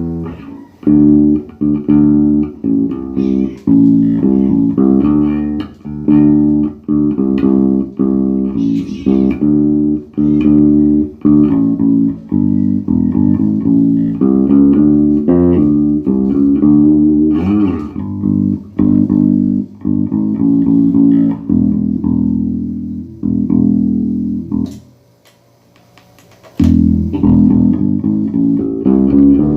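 Electric bass guitar played through a repaired Peavey MaxBass 110 combo amp, a run of plucked notes and riffs; the amp is working again after fixes to its power supply, preamp and class D chip. The playing stops for a moment about three quarters of the way through, then starts again.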